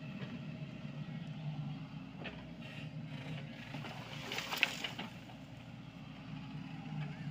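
Diesel engine of a SANY mini excavator running steadily while it works. About four seconds in there is a brief burst of clatter and scraping as the bucket moves soil.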